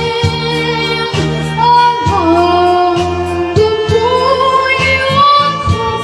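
Music with a high sung voice holding long notes that glide between pitches, over a steady beat.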